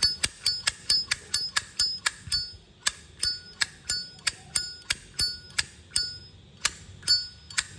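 A 1986 Zippo lighter's hinged lid being flicked open and snapped shut over and over. There are about two to three sharp metal clicks a second, each with a clear bell-like ring.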